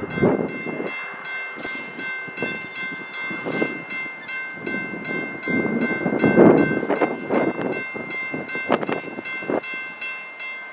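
Railroad crossing warning bell ringing in fast repeated strokes while the crossing gates come down, cutting off suddenly near the end as the gates settle. Gusts of wind buffet the microphone throughout.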